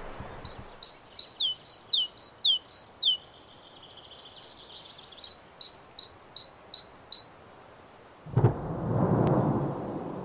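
A songbird sings two runs of quick, repeated two-note phrases. About eight seconds in, a sudden deep boom rolls on for about two seconds: a blast from a nearby military shooting range.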